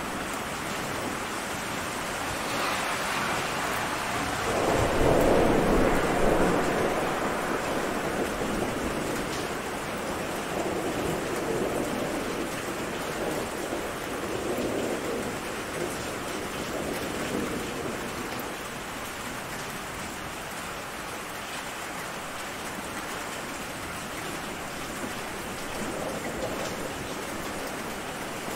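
Steady rain with rolling thunder. The loudest rumble swells up about five seconds in and dies away over a few seconds, and fainter rumbles come and go later.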